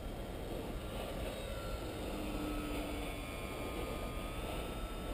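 Wind rumbling on the microphone, with the faint whine of a distant RC plane's small brushless outrunner motor and propeller drifting slowly in pitch.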